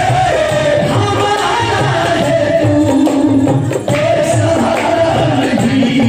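Qawwali: singing in a sustained, wavering melodic line over a steady hand-drum beat.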